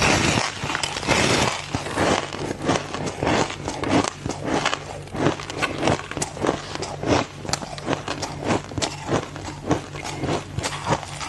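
Ice being bitten and chewed close to the microphone: a rapid, irregular run of sharp crunches, several a second. The crunching is loudest in about the first second and a half.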